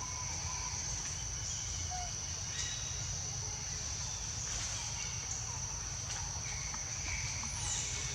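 Insects droning steadily in one continuous high-pitched tone, over a low rumble, with a short bird chirp near the end.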